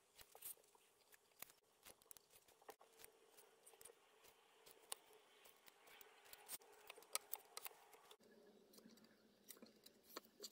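Faint scratching and small clicks of a scalpel blade slicing through thick car-wash sponge foam, cut out around a clamped metal template.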